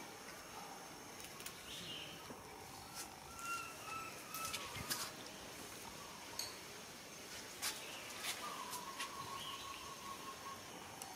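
Faint outdoor ambience with thin, drawn-out whistled animal calls, the longest lasting about two seconds near the end, and scattered soft clicks.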